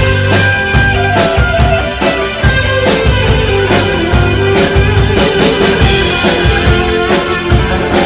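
Live new wave rock band playing loud: electric guitar over a steady drum beat, with sustained held notes.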